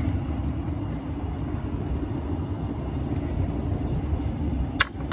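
A log splitter converted to a forging press runs its hydraulic power unit with a steady low rumble while it crushes a heated steel billet. There is one sharp click near the end.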